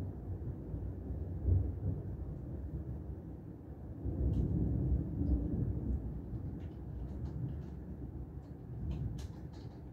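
Low, steady rumble of a rainy city's outdoor ambience, swelling about four seconds in, with a few faint ticks in the second half.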